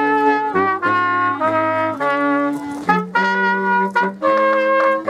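Wind trio of trumpet, clarinet and baritone saxophone playing a slow Christmas tune in held notes and chords, the trumpet on top.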